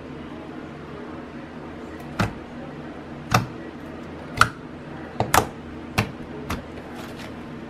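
Hand squishing and kneading a clear-glue-and-borax icy slime, giving about seven sharp wet pops and clicks, the first about two seconds in and the rest coming roughly once a second, over a low steady hum.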